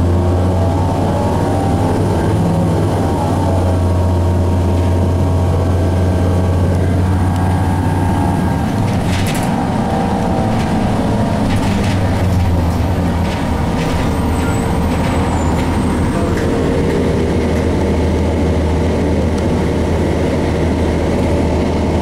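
Cummins ISC inline-six diesel of a 2002 Blue Bird CS transit bus running under way, heard from inside the cabin: a steady low drone whose pitch rises and falls a few times as the bus accelerates and slows. A few sharp clicks or rattles come about nine to twelve seconds in.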